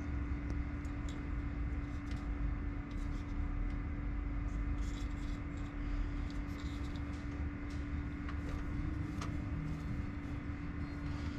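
Steady low machine hum with a constant droning tone, and small scattered clicks and ticks of wires and terminal connectors being handled at a car battery.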